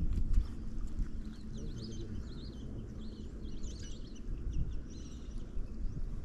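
Small birds chirping in quick, twittering notes, over a low, uneven rumble of wind on the microphone.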